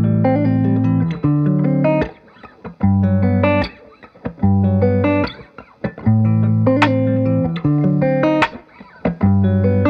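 Instrumental background music: a plucked, guitar-like melody over low bass notes, played in short phrases with brief pauses between them.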